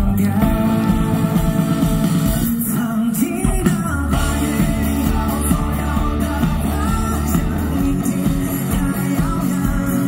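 Live rock band playing: a singer singing into a microphone over electric guitar and drums.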